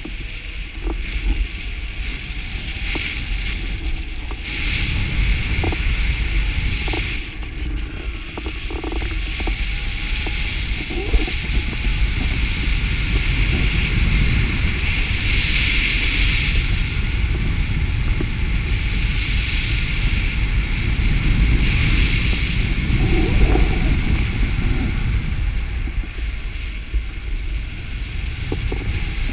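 Airflow rushing over the microphone of a camera carried on a paraglider in flight: a steady, loud wind roar with heavy low rumble that swells and eases.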